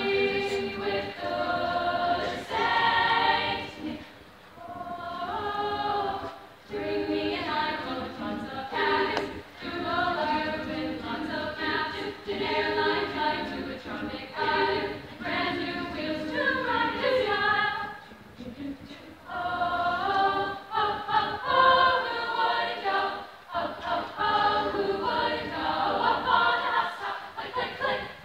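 High school choir singing in phrases of sustained, changing chords, with a few short breaths or breaks between phrases.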